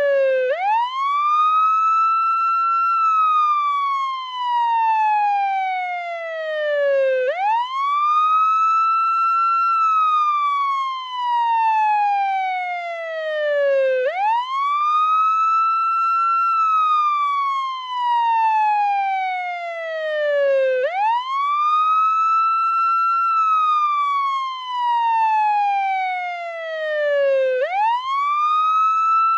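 Portuguese ambulance siren sounding its wail: each cycle rises quickly, holds briefly at the top, then falls slowly, repeating about every seven seconds.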